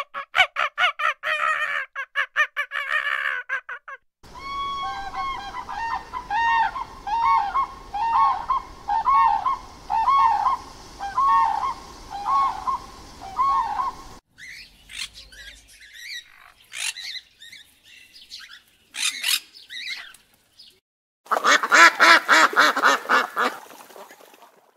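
A common crane calling over and over, about one loud trumpeting call a second for some ten seconds, followed by sparse high chirps. Near the end comes a short burst of rapid honking from a ruddy shelduck. The first few seconds hold a fast run of pulsed animal calls.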